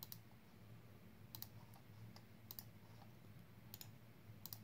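Computer mouse clicking: sharp quick double clicks about once a second, over a faint steady low hum.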